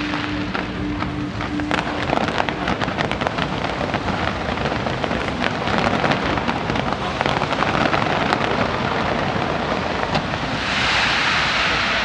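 Fireworks display going off: many rapid sharp bangs and crackles in the middle, then a denser, steady wash of crackling noise swelling near the end.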